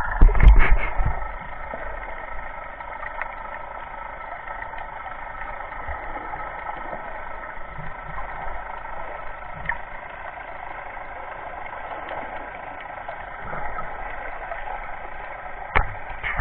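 Boat engine heard underwater: a steady, muffled drone with several steady whining tones. Loud knocks and splashes against the camera come in the first second.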